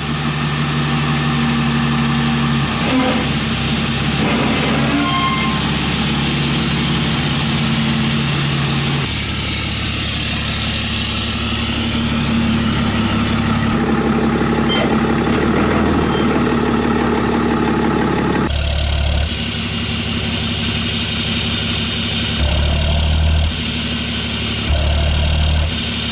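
Ram dually pickup's Cummins turbo-diesel engine running and idling through its newly fitted aftermarket exhaust. Several times near the end its exhaust note briefly swells deeper.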